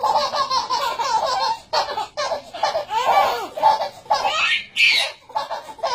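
Twin babies laughing at each other in short, repeated bursts of giggles and belly laughs.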